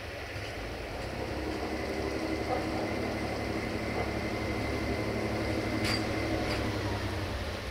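Diesel multiple unit approaching slowly on snowy track, its engine running with a steady hum that grows louder as it nears. Two sharp clicks come near the end.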